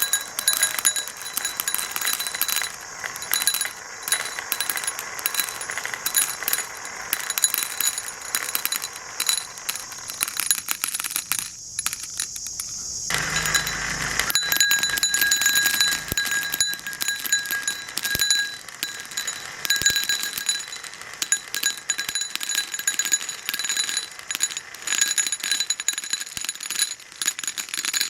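Many marbles rolling down a marble run, a dense stream of small clicks and clatters as they knock against the track and each other, with a faint ringing underneath.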